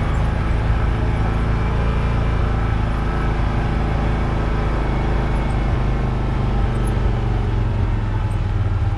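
Can-Am Maverick Trail 1000's V-twin engine running steadily as the side-by-side drives along a trail.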